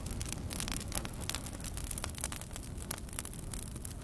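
Smouldering burn pile of scrap wood crackling, with sharp irregular pops several times a second over a low steady rumble.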